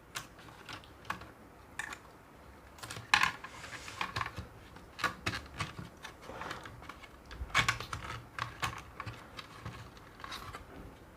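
Irregular light clicks and taps of small laptop parts being handled and unclipped while a laptop is taken apart, with the sharpest clicks about three seconds in and again around seven to eight seconds in.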